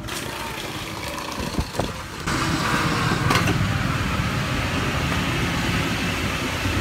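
A motorcycle engine running close by amid street traffic, a steady rumble that gets louder about two seconds in.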